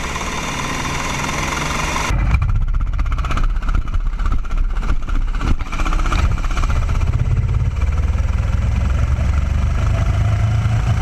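Racing kart's small engine running hard on track, heard from a camera mounted on the kart. About two seconds in, a cut in the footage changes the sound: the high hiss drops away and the engine comes through deeper and louder, with a rough fluttering note.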